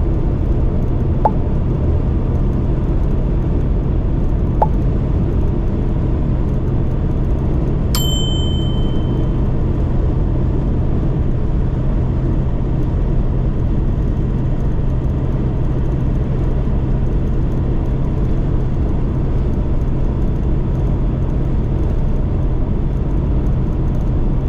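Delivery van's engine and road noise running steadily with a constant low hum while driving. A single sharp, high ding rings out about eight seconds in, with two faint ticks a few seconds before it.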